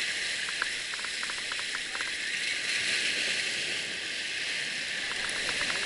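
Fishing reel clicking in quick runs of ticks about a second in and again near the end, as line is worked against a hooked houndfish. Under it, a steady hiss of sea water washing and splashing.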